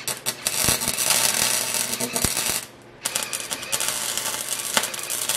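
Flux-core MIG welder arc crackling as it welds a steel exhaust pipe into place. The arc stops for a moment about halfway through, then strikes again and keeps crackling.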